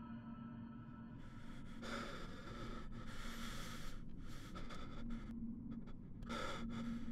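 A man breathing hard in ragged gasps: a run of loud breaths, each about half a second to a second long, beginning about a second in. A low steady hum runs underneath.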